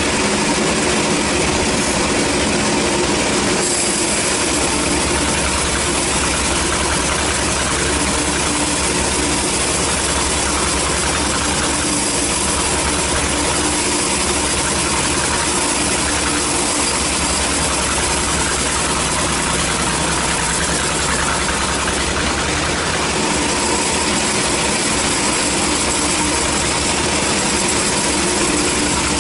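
Band sawmill running with its steel blade cutting lengthwise through a large log, a steady mechanical drone and sawing noise. The tone changes slightly a few seconds in and again about two-thirds of the way through.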